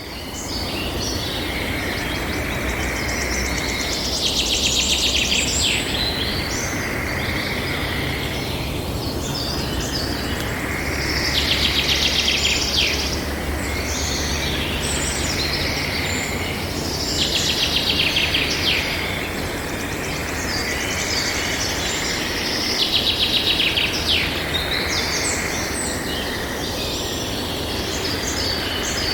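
Tropical forest ambience at dusk: a dense chorus of birds and frogs calling together, with a rapid pulsed trill that swells up about every six seconds over a steady low rumble.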